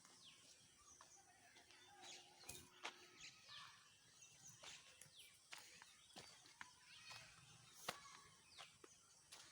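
Near silence: faint, scattered bird chirps, short downward-sweeping calls, with a few light clicks over quiet outdoor background.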